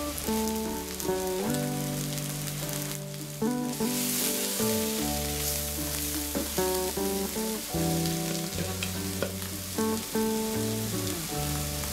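Diced onions sizzling as they fry in a pan, stirred with a wooden spatula; the sizzle grows louder about four seconds in. Background music with plucked notes and a bass line plays throughout.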